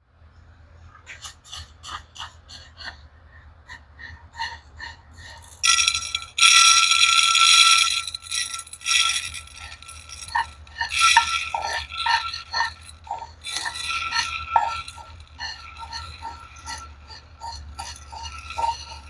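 Dry raw rice grains clicking and rattling against a dish, in many short clinks with a denser, louder rattle from about six to eight seconds in, over a steady low hum.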